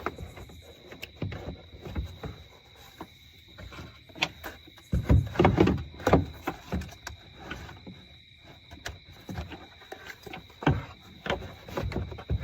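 Irregular knocks, clicks and rattles of a plastic air intake box being handled and seated in the engine bay, with a cluster of louder knocks about five seconds in. A faint steady high whine sits underneath.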